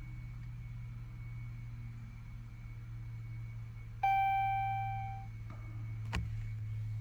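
A single electronic chime sounds about four seconds in and fades over about a second, over a steady low hum. A sharp click follows shortly after.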